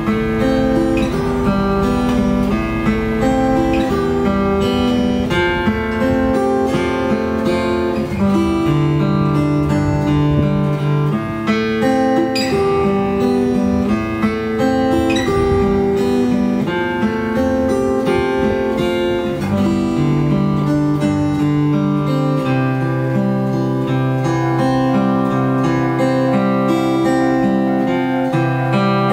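Solo guitar playing a melody in fingerpicked arpeggios over a bass line.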